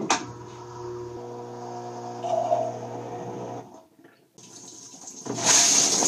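Dishwasher starting its cycle: after a click, the pump motor hums steadily for about three and a half seconds and stops. Then water sprays and splashes inside the tub, getting much louder near the end as the spray hits the phone.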